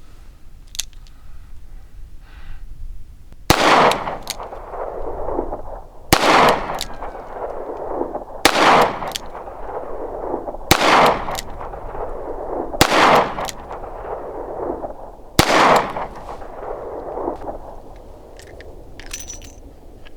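Smith & Wesson Model 19-5 snub-nose revolver firing six single-action shots of light target loads, spaced about two to two and a half seconds apart. Each report rings on for about a second.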